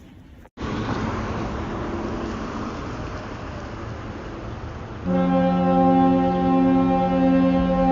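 Steady outdoor background noise, then about five seconds in a fire-company air horn, a retired 1940s Clark Cooper ship/fog horn, starts a loud, deep, steady blast of several tones at once, sounding for a fire call.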